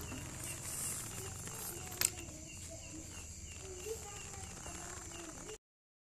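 Rural night ambience: insects chirping in a steady rhythm of about four chirps a second over a continuous high insect drone, with one sharp click about two seconds in. The sound cuts off abruptly near the end.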